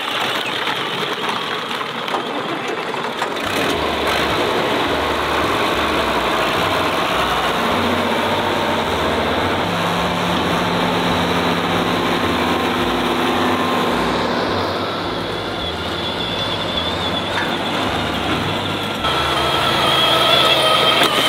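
John Deere farm tractor with front loader, its engine running steadily as it drives along a field track.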